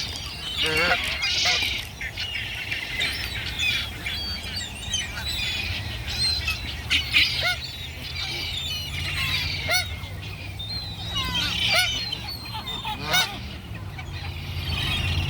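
A flock of wild birds calling, with many short overlapping calls and chirps throughout.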